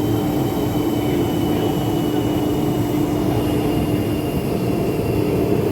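Woodworking machine running steadily: a constant motor hum with a steady pitched tone, no cutting strokes or knocks.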